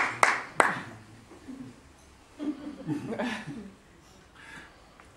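Audience handclaps in a steady rhythm, about three a second, stopping within the first second, followed by faint scattered voices from the audience.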